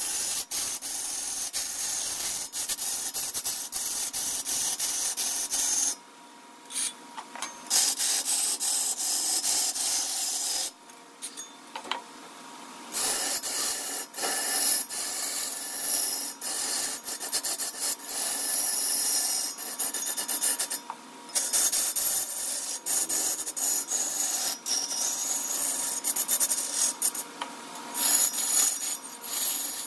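Wood being worked on a lathe, a tool or abrasive rubbing against the spinning wood with a steady, hissing scrape. It stops briefly about four times and picks up again.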